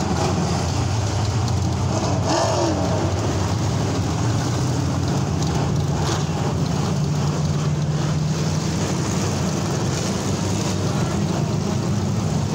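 Several dirt track stock cars running their engines around the oval, a steady loud drone.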